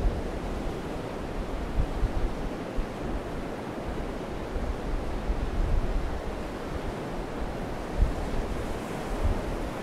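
Ocean surf breaking on a beach as a steady wash of noise, with wind buffeting the microphone in uneven low rumbles.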